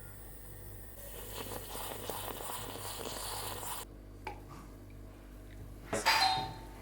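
Rustling noise that stops abruptly, a few faint clicks, then a short, louder chime-like ring near the end.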